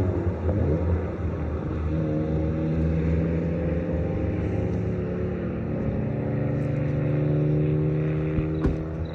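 An engine running steadily, its pitch gliding upward about a second in and shifting again partway through, with a short knock near the end.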